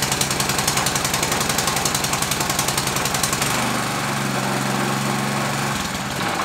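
Small air-cooled single-cylinder four-stroke engine, unmounted, running just after being started, with a fast, even knocking beat. About three and a half seconds in its note changes to a smoother, steadier run.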